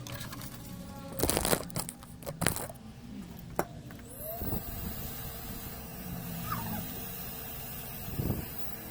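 Cat meowing a couple of times, short wavering calls. Sharp knocks and clicks of handling come in the first few seconds, and a steady high hiss starts about four seconds in.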